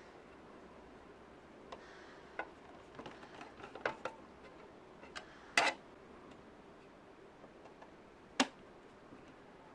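Irregular small clicks and taps of computer parts and tools being handled, the loudest a quick double click about halfway through and a single sharp click near the end.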